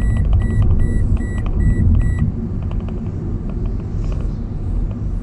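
Toyota Vios lane departure alert beeping: five short, high beeps about two a second that stop a little over two seconds in. They warn that the car is crossing a lane line without the turn signal on. Under them is the steady low rumble of road and engine noise inside the cabin.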